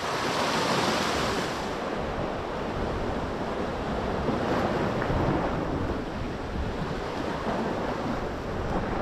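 Sea waves washing against a rocky shore, with wind on the microphone. The wash is strongest in the first second or two.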